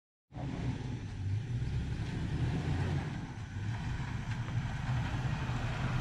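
Toyota Tacoma pickup's engine running at low speed as the truck drives slowly across a lawn, a steady low rumble.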